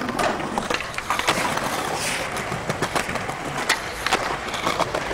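Skateboard wheels rolling over rough concrete, with several sharp clacks of the board popping and landing.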